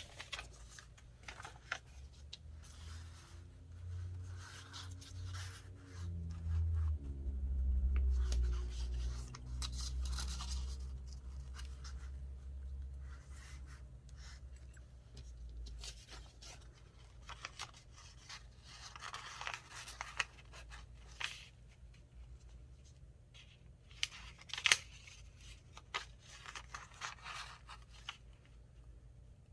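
Paper pieces being handled and shifted on a journal page: scattered rustles, scrapes and light taps. A low hum runs from about two seconds in until about sixteen seconds.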